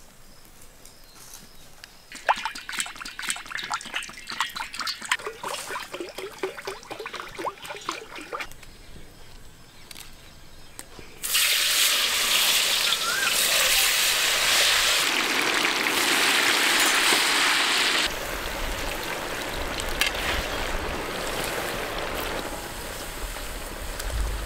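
Vegetable oil glugging as it pours from a plastic jug into a large black kadai. About eleven seconds in, a sudden loud sizzle starts as sliced potatoes are dropped into the hot oil. The deep-frying sizzle carries on, somewhat quieter after a few seconds.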